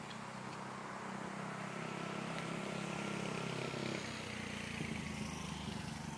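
A motor vehicle's engine running steadily nearby, growing louder over the first few seconds and easing off slightly later.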